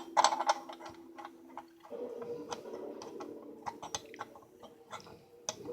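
Light metallic clicks and ticks of small toy-locomotive parts being handled and fitted, dense at first and then scattered. A steady hum runs underneath and steps up in pitch about two seconds in.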